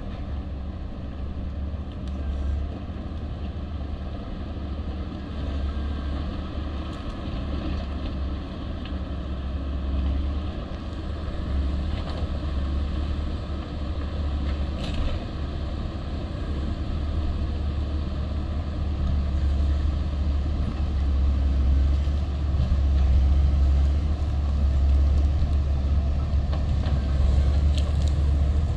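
Caterpillar 140M motor grader's diesel engine running under load as the grader works its blade along a gravel road, a steady low drone that grows louder toward the end as the machine comes closer.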